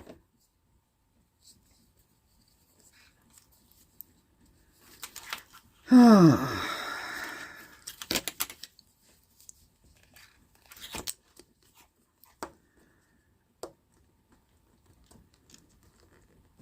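Small plastic clicks and scrapes of a car key fob being handled and pried at with its key blade as the case refuses to open. About six seconds in comes one loud, drawn-out vocal sound that falls in pitch.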